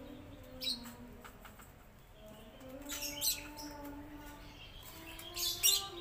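Small birds giving short high chirps, loudest near the end, over low drawn-out cooing calls, typical of doves.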